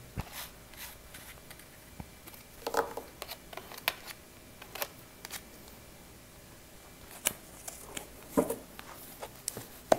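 Tarot cards being gathered up off a card stand by hand: scattered light clicks and taps of card stock against card and wood.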